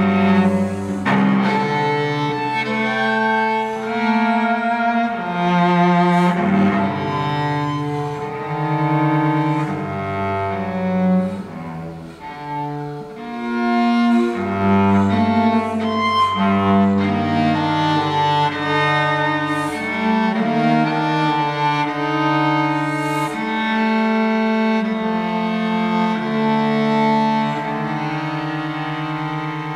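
Solo cello, bowed: a slow line of long held notes with vibrato, moving to a new pitch every second or so.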